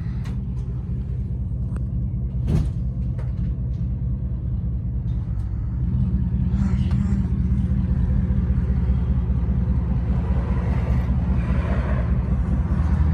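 Steady low rumble of a running vehicle, with a single sharp knock a couple of seconds in; the rumble gets louder about halfway through.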